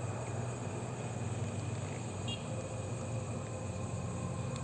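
Night insects chirring steadily over a low, even background rumble, with one brief high chirp about halfway through.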